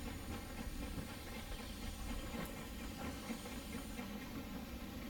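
Narrow-gauge steam tank locomotive working slowly with a short train, heard faintly as a steady low rumble with light steam hiss.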